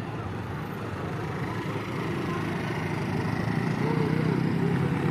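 Crowd of many people talking at once over a low hum, growing steadily louder.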